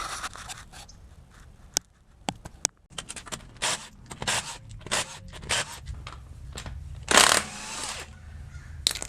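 Scattered clicks and metal clanks of tools being handled, with one short, louder rasping burst about seven seconds in.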